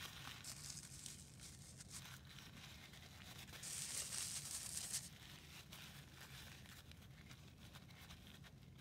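Crumpled paper towel rustling and crinkling faintly as it is dabbed onto wet watercolour paper to lift out clouds, with a louder stretch of crinkling around four seconds in.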